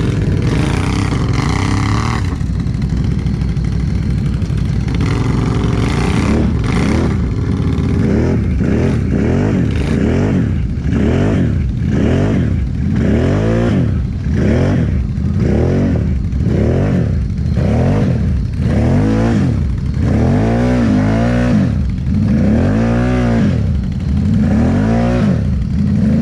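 Can-Am Renegade XMR 1000R ATV's V-twin engine revving hard over and over while the quad is buried in thick mud, its pitch climbing and falling about once a second and growing stronger near the end: a stuck machine being rocked to break free.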